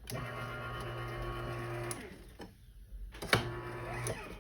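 Garage door opener motor running with a steady hum, its motor working again after a burnt-out capacitor fault. It stops about two seconds in, and after a click it runs again for about a second.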